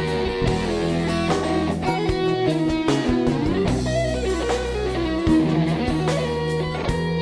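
Background music: an instrumental stretch of a pop-rock song with electric guitar, bass and drums.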